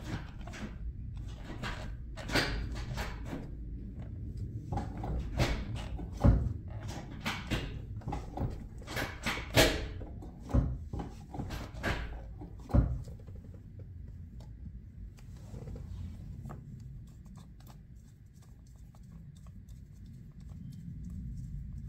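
Hands working a shifter boot over the gear lever and pressing it into the console: rustling and creaking of the boot with a string of sharp clicks and knocks, busiest in the first dozen seconds, then only faint handling.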